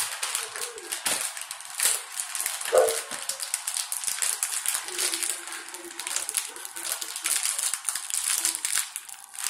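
Plastic snack-style packet crinkling and crackling as it is handled and pulled at to tear it open. A short voice-like sound about three seconds in.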